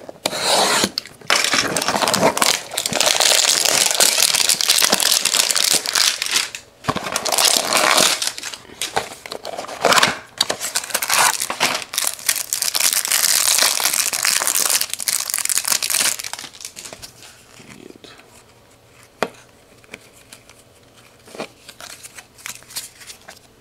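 Cardboard hanger box being opened and the trading card pack inside torn and its wrapper crinkled. About two-thirds of the way through the crinkling stops, giving way to quieter flicks and rustles of a stack of trading cards being shuffled.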